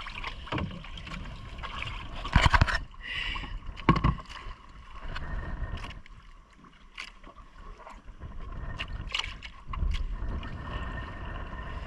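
Water sloshing and knocking in a small outrigger boat's hull, with two loud knocks about two and a half and four seconds in.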